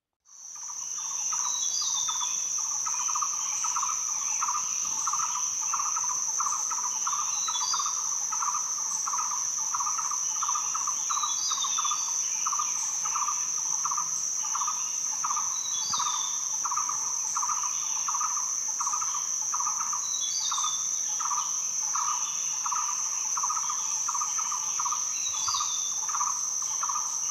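Forest insect chorus: a steady high-pitched drone with a lower, evenly pulsing chirr beneath it. A short, falling bird chirp repeats every four seconds or so.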